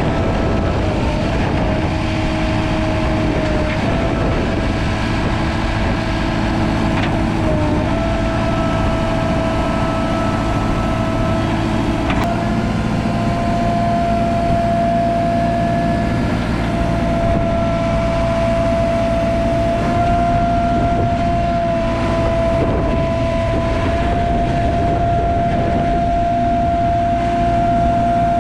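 JCB 3CX backhoe loader's diesel engine running steadily, with a high steady whine over it that dips briefly in pitch a few times.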